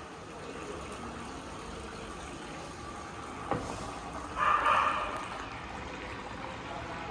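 Steady bubbling and water noise from the fish tank's air-hose aeration. A sharp click comes about three and a half seconds in, followed shortly by a brief louder noise.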